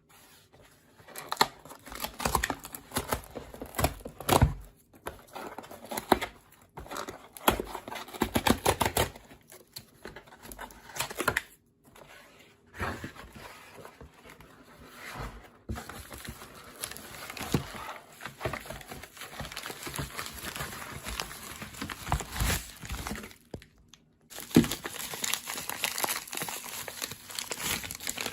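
Plastic packaging crinkling and tearing in irregular bursts, with scattered clicks and knocks from handling, as a new hard drive is unpacked. The rustling becomes denser and more continuous after a short pause near the end.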